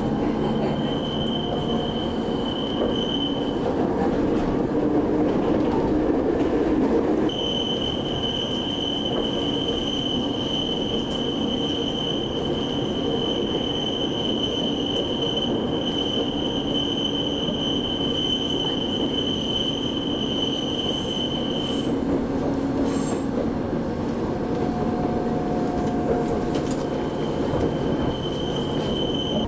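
Funicular car climbing with a steady rumble of its running gear. A thin, high-pitched squeal comes and goes over it: briefly near the start, then held for about fourteen seconds, then again near the end. A few light clicks sound about two-thirds of the way through.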